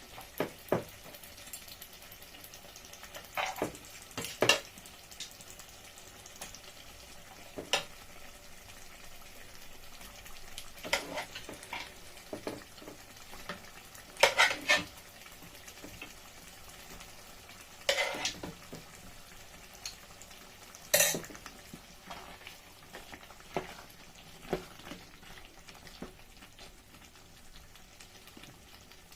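A spoon stirring egusi soup in a cooking pot, with sharp scrapes and knocks against the pot every few seconds over a faint steady sizzle of the pot cooking.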